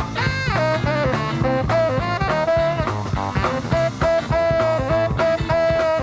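Instrumental swing-style band music: a horn melody over guitar and a steady drum beat.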